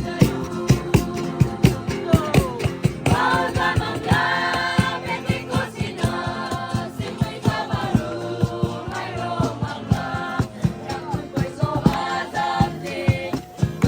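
Gospel-style song: voices singing over an instrumental backing with a steady beat.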